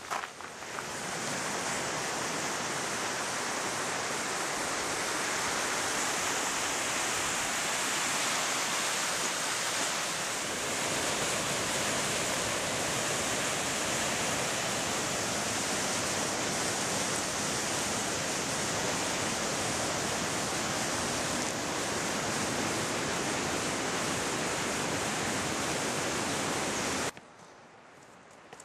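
Waterfall rushing, a loud, steady roar of falling water that cuts off suddenly just before the end.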